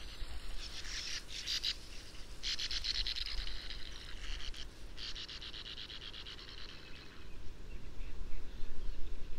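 Sand martins giving harsh, dry, rapidly pulsing twittering calls in bursts as neighbouring birds squabble at their nest burrows, thinning out after about seven seconds. A low rumble grows louder near the end.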